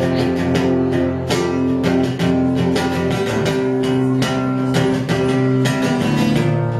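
Guitar chords strummed in a steady rhythm as the introduction to a song.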